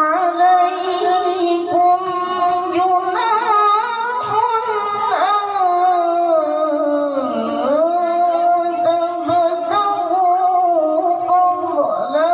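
A boy's voice reciting the Quran in melodic tilawah style, holding long notes with wavering ornamented turns. The pitch sinks low around the middle and then climbs back.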